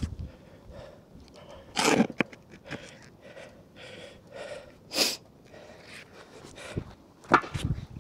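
Sharp, noisy breaths and snorts of a person straining while hauling on a rope to free a magnet stuck in the canal, with three louder bursts about two, five and seven seconds in.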